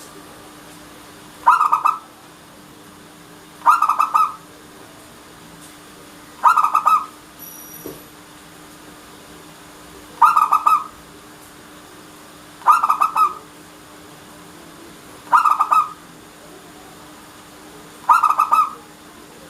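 Local Indonesian zebra dove (perkutut) cooing: seven short phrases, each under a second, repeated every two to three seconds over a faint steady low hum.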